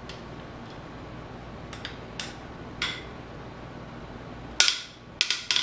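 Sharp metallic cracks from engine bolts being broken loose with a wrench, a few single ones and then the loudest, followed quickly by three more near the end. Each bolt cracks loose as though it were snapping off, which is typical of bolts that were over-torqued.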